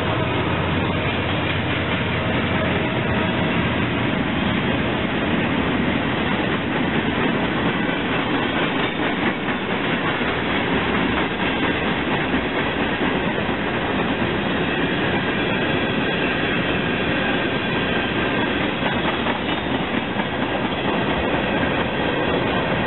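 Freight train cars rolling past: a steady, loud rumble and rattle of steel wheels on the rails.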